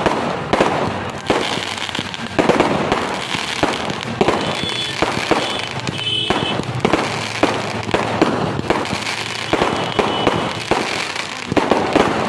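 Fireworks display: aerial shells bursting with many sharp bangs and crackling in quick, irregular succession.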